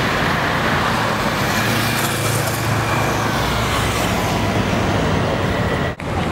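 City street traffic: a steady rumble of passing cars and engines, dropping out for a moment about six seconds in.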